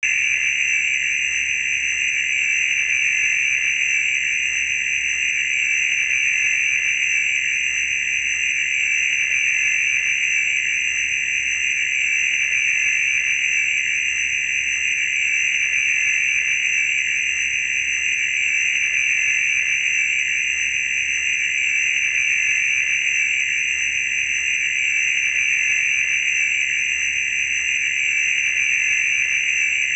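Vintage Cinesound library laser sound effect: a steady, high-pitched electronic whine that holds unchanged throughout.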